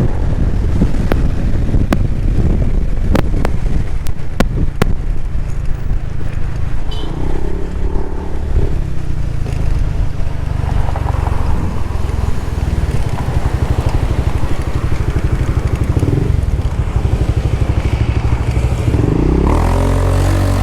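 Triumph Thruxton 900's parallel-twin engine running under way, its pitch rising and falling with the throttle, the ECU freshly remapped for more torque. Wind buffets the microphone with sharp clicks in the first few seconds.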